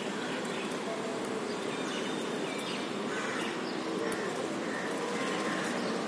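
Steady background hum, with a few faint, short bird calls and light ticks of beaks pecking at seeds on a concrete ledge.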